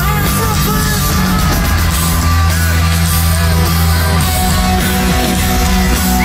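Live rock band playing loudly: distorted electric guitars over sustained bass notes and drums in an instrumental passage, with no vocal line.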